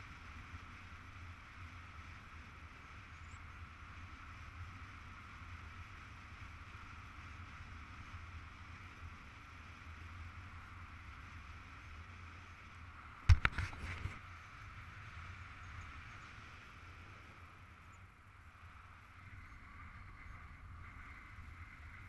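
Steady wind noise on a paraglider's riser-mounted camera in flight, a low rumble with a fainter even hiss higher up. About 13 seconds in, a quick cluster of sharp knocks, the loudest sound here, then the steady wind carries on.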